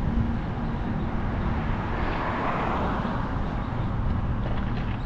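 Wind rumbling on the microphone of a moving bicycle, with road noise. A motor vehicle passes about two seconds in, its tyre hiss swelling and fading within about a second and a half.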